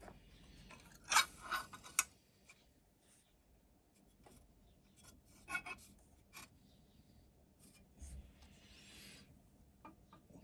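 Steel locomotive frame parts handled and fitted together by hand, making small metallic clinks and rubs. There is a quick cluster of clinks about a second in, a few single clicks after that, and one longer scrape later on.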